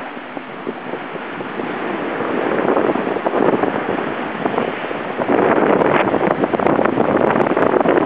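Wind buffeting the microphone together with the rush of water and spray along the hull and deck of a Class 40 racing sailboat moving fast through the sea. The rushing gets louder about five seconds in.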